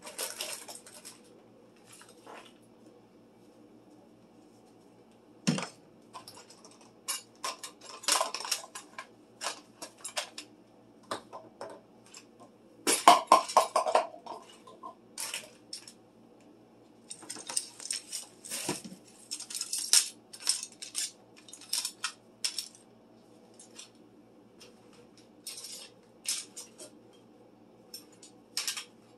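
Cleaning supplies and plastic storage baskets being handled and set down inside an under-sink kitchen cabinet: scattered clatter, knocks and rattles, loudest about thirteen seconds in.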